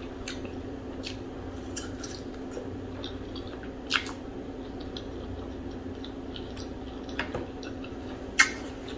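Close-miked wet chewing and mouth sounds from eating fufu and okra soup: soft squishes and smacks, with a few sharper clicks, the loudest about four seconds in and near the end, over a steady low hum.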